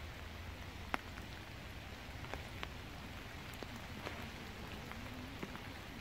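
Steady light rain falling on wet paving, with scattered single drops ticking close by, the sharpest about a second in. A low rumble runs underneath.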